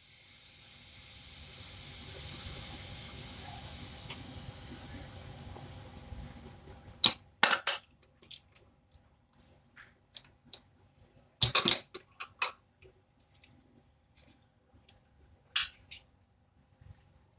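Steam hissing out of a pressure cooker's vent as the whistle weight is held up with a spoon, letting out the pressure left after the first whistle; the hiss dies away over about seven seconds. Then a few sharp metal clicks and clanks as the cooker lid is worked open.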